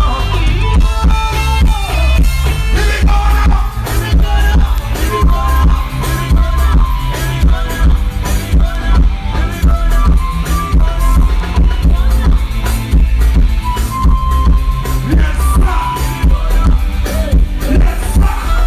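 Live band music through a loud PA at a sound check: heavy bass and a steady drum-kit beat, with a melody line over it.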